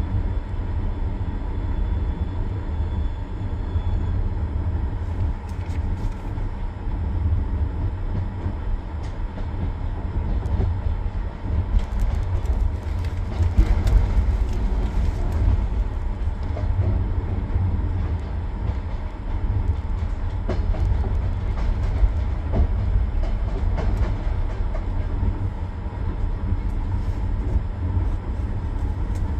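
Steady low rumble of a moving train heard from inside the carriage, with a thin steady high tone and scattered faint wheel clicks; it swells a little about halfway through.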